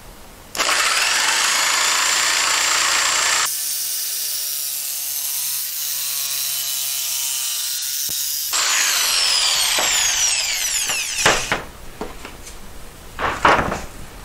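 Corded jigsaw with a fine blade cutting a polycarbonate sheet. It starts about half a second in and runs loud and steady, with a quieter humming stretch in the middle. Near the end the motor winds down with a falling whine, followed by a few knocks.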